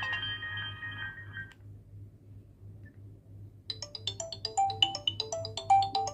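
Nokia 9300 Communicator ringtones playing through the phone's speaker: one tune's held notes fade out about a second and a half in, and after a pause of about two seconds a new melody of quick, short beeping notes begins.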